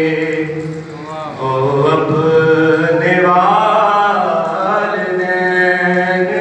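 A man singing devotional Urdu verse solo into a microphone, holding long drawn-out notes whose pitch bends up and down, with a short break for breath about a second in.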